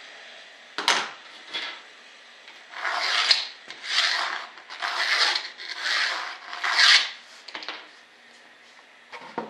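Hand sanding: five rasping strokes about a second apart, after a couple of sharp clicks of the part or tool being picked up.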